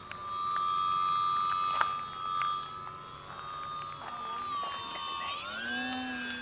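Electric motor and propeller of a DW Foamies Juka 40" foam aerobatic RC plane whining in flight, steady at first, then rising in pitch about five seconds in as the motor speeds up.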